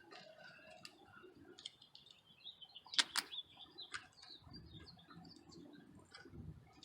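Faint bird chirping in the background, with a few sharp clicks from plastic trim and push pins being handled. The loudest is a quick double click about three seconds in.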